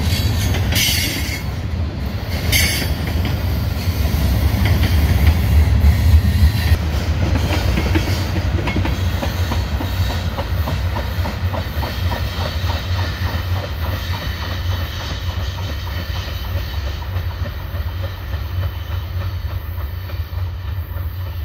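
Freight cars of a CN manifest train rolling past and away. A steady low rumble carries the clickety-clack of wheels over rail joints, with two short high-pitched bursts of wheel noise in the first three seconds. The sound fades slowly as the last cars recede.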